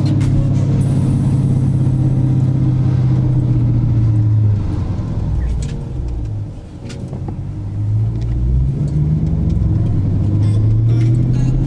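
Car engine running, its pitch and loudness dropping off about four seconds in and then climbing back up, as when a car slows and then accelerates again.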